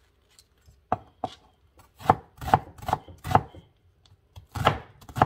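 Chef's knife chopping a red onion on a plastic cutting board: about eight sharp, uneven chops starting about a second in, with a short pause midway.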